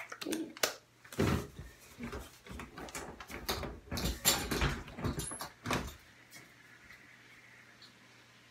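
A run of irregular knocks and thumps for about five seconds as someone gets up from a tiled bathroom floor and moves about. After that they stop, leaving quiet room tone with a faint low hum.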